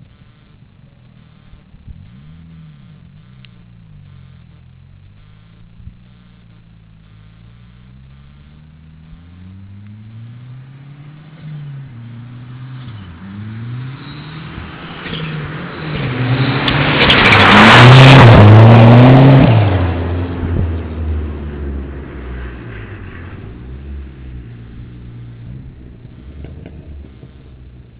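Mitsubishi Starion's engine revving up and down repeatedly as the car is driven hard, growing louder as it approaches. It is loudest about two-thirds of the way in, with a rush of noise, then fades as the car moves away.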